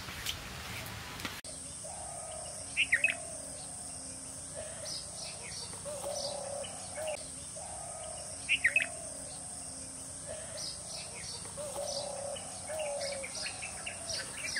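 A short scrape of a stone roller on a grinding stone that cuts off suddenly about a second in, then birds calling over a steady high insect drone: two loud bursts of sharp chirps, lighter chirps and a lower warbling call that repeats throughout.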